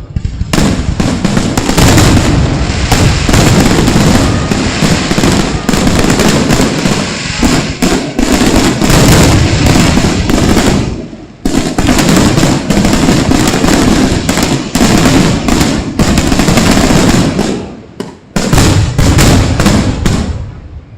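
Fireworks going off in a rapid, dense barrage of loud bangs and crackles, nearly continuous, easing briefly about eleven seconds in and again near eighteen seconds before resuming.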